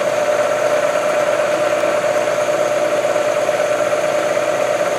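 Milling machine's end mill cutting a metal block under power feed: a steady machining hum with one constant tone.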